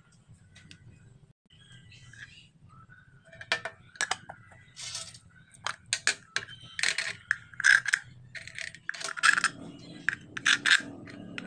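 Handful of metal bolts clinking against each other and tapping on a plastic PVC end cap as they are handled and pushed into its holes: a string of sharp, ringing clinks that starts a few seconds in, with a low rubbing of plastic near the end.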